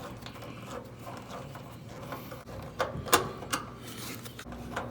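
Light metallic clicks and scraping from a hand tool tightening the strain-relief clamp onto a range's power cord, with a few sharper clicks a little after halfway.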